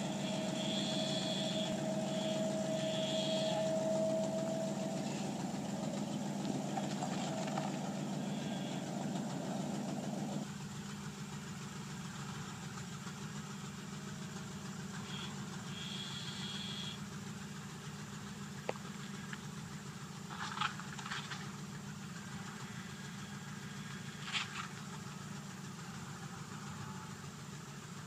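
Old pickup truck's engine idling steadily as it slowly reverses a sailboat trailer down a boat ramp; the sound drops a little about ten seconds in.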